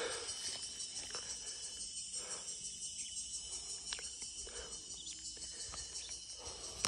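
Steady, high-pitched shrilling of an insect chorus, with a few faint clicks.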